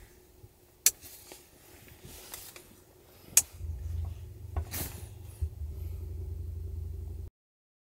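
Two sharp clicks, about a second in and again about two and a half seconds later, as the LED ceiling lights in the camper are switched off. A steady low hum starts just after the second click and cuts off abruptly near the end.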